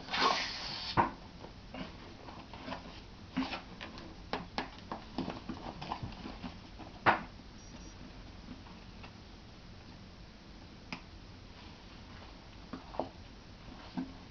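Hands working an inflatable LuminAID solar lantern as it is aired up: a short noisy rush of air or plastic at the start, then scattered plastic crinkles and clicks, with one sharp click about seven seconds in.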